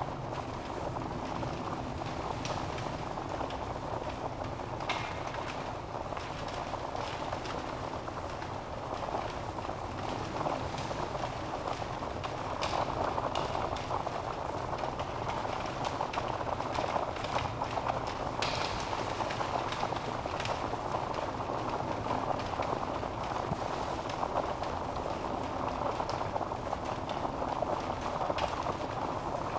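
Wood fire burning steadily in a fireplace, a continuous rushing hiss of flames with scattered small crackles and a few louder pops from the logs.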